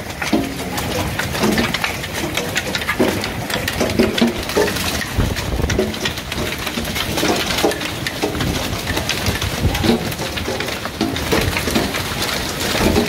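Hail and rain pelting a wooden deck and porch, a dense, continuous patter of many small impacts.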